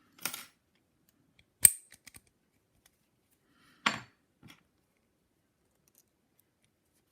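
A few sharp metallic clinks of lock-picking tools and a padlock being handled, the loudest about a second and a half in with a short ring, then quiet after about four and a half seconds.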